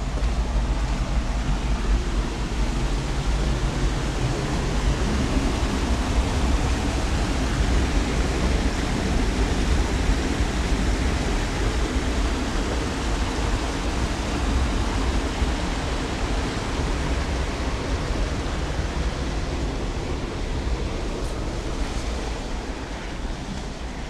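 Woodland stream rushing over rocks, a steady loud hiss of running water that eases a little near the end.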